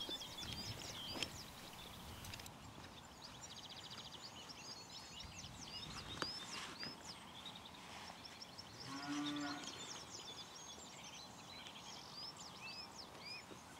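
Small birds singing throughout, and about nine seconds in a cow gives one moo lasting about a second, the loudest sound here.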